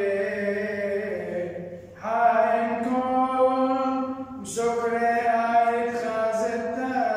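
A solo male voice chanting a Syriac madrasha hymn in long, held notes, with a short breath about two seconds in before the next line begins.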